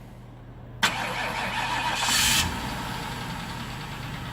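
Ford Crown Victoria Police Interceptor's V8 being started after its jammed starter was freed: the starter engages suddenly about a second in and the engine turns over and keeps running, louder for a moment in the middle.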